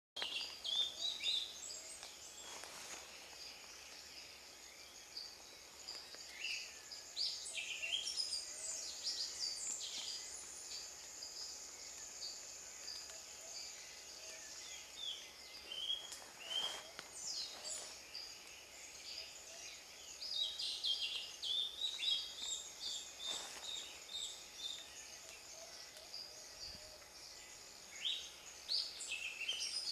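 A male Brachycephalus pitanga (pumpkin toadlet) calling: short, high-pitched chirping notes that come in irregular clusters. Behind them is a steady high-pitched chorus of other small creatures.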